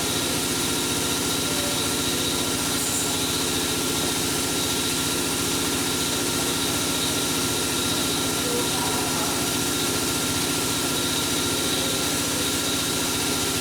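A steady mechanical drone holding several constant tones, unchanging in level throughout.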